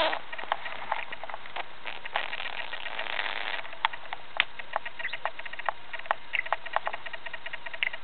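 Budgie tapping and pecking with its beak at the camera: a run of short, irregular clicks and taps, with a few faint chirps later on.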